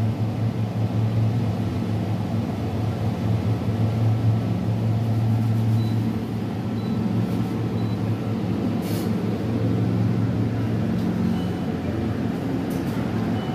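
Steady low electric hum of open-front refrigerated display chillers, with a brief click about nine seconds in.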